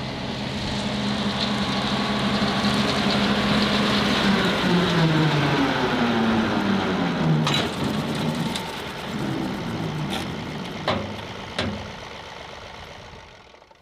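John Deere 2038R compact tractor's three-cylinder diesel engine running under load, driving a rotary cutter (brush hog) while mowing grass and weeds. It grows louder as the tractor comes past, its pitch drops as it goes by, and it fades as it moves away, with a few sharp knocks in the second half.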